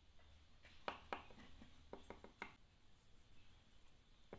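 Faint small clicks and taps of hands handling a plastic PVC fitting and the dauber of an open can of PVC cement, about half a dozen between one and two and a half seconds in.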